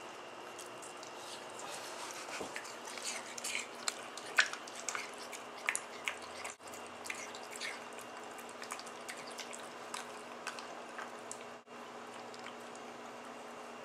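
Pug licking the flesh of a watermelon slice: irregular wet tongue smacks and clicks, coming thickest in the first half.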